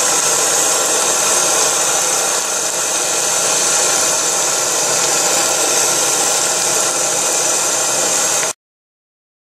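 Live-steam model of South Side Rapid Transit No. 46, a steam tank locomotive, standing in steam with a loud steady hiss of escaping steam and a faint steady tone underneath. The sound cuts off suddenly near the end.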